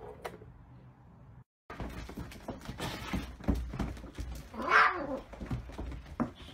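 A cat yowls once, a cry that rises and then falls in pitch, about five seconds in. Around it are irregular scuffling and light knocks from a cat rolling and thrashing on a tiled floor.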